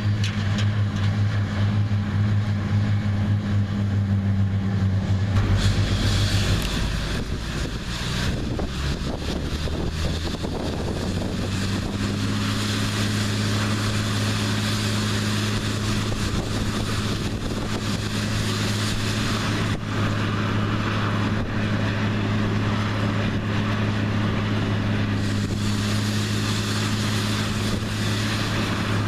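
New Holland CR9060 twin-rotor combine's diesel engine running steadily under harvesting load, with a deep, even drone. About six seconds in, the engine note dips and wavers for a few seconds, then settles back to a steady pitch.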